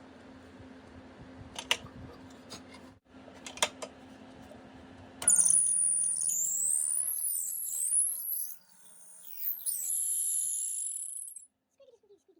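Drill press motor humming steadily with a couple of sharp clicks. About five seconds in, a loud, high-pitched squeal starts and wavers up and down in pitch for about six seconds as the drill bit bores through the wooden ornament blank.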